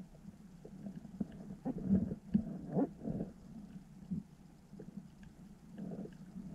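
Underwater ambience heard through a submerged camera: a steady low hum with irregular muffled knocks and gurgles, the strongest about two to three seconds in, and scattered faint clicks.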